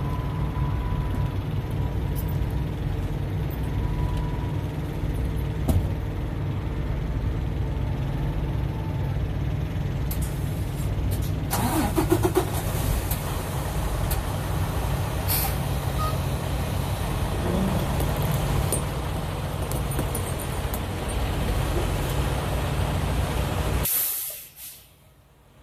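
Semi truck's diesel engine idling, with short air hisses from about ten seconds in as the brakes are released and the truck backs off the tire chains. The sound drops away sharply near the end.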